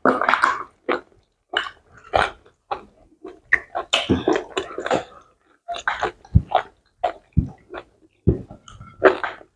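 Close-up eating sounds of pounded yam with slimy ogbono soup being eaten fast: irregular wet lip smacks, slurps and gulps, several a second, with a few low thuds in the second half.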